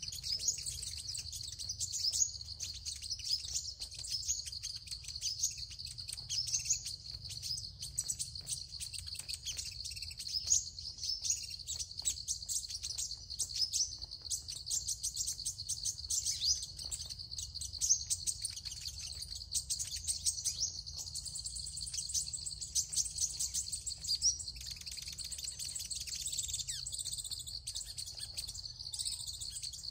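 Sunbirds chirping: a dense, continuous run of short, high, rapid notes, over a steady high whine.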